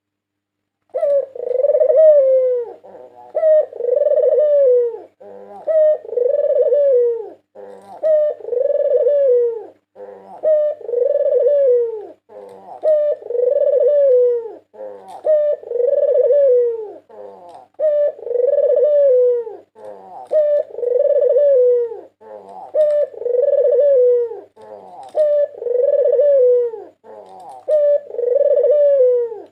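Barbary dove (white puter) cooing over and over, starting about a second in, about one coo every two seconds; each is a short rolling lead-in followed by a long falling coo. A faint steady hum runs underneath.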